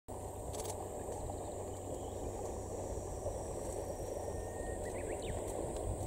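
Outdoor ambience: insects trilling steadily in a high band over a low, steady background noise, with a few short rising chirps about five seconds in. No train is audible yet.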